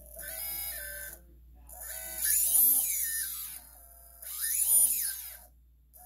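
T-Motor 1507 brushless drone motor spun up three times in short throttle bursts, its electric whine rising and falling in pitch with each burst. It runs smoothly, a motor with good bearings.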